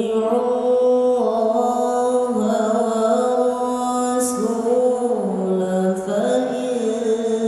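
A man's solo voice reciting the Quran in melodic tilawah style through a microphone, holding long notes with slow, ornamented rises and falls in pitch.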